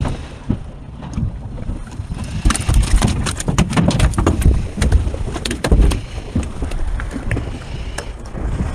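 Wind buffeting the microphone on a small boat at sea, with low rumbling and many sharp knocks and clatters, most of them in the middle few seconds.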